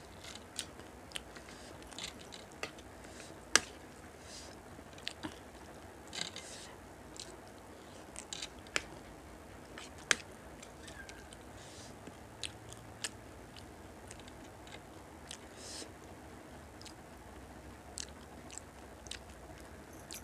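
Close-up mouth sounds of someone eating: chewing and biting with crunches, broken by scattered sharp clicks, the two loudest about three and a half and ten seconds in.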